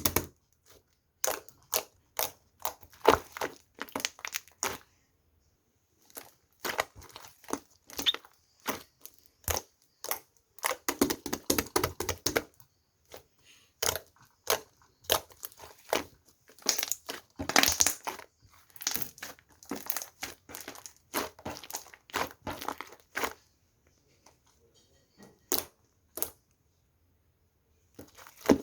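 Thick ssukddeok (mugwort rice cake) slime being squeezed, pressed and stretched by hand, giving irregular sticky pops, clicks and crackles in clusters, with a few short pauses and a longer one near the end.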